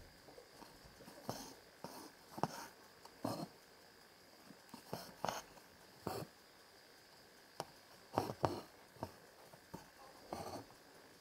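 Hand embroidery: a needle piercing linen stretched taut in a wooden hoop and thread drawn through it, making about a dozen short rasping pulls at an uneven pace.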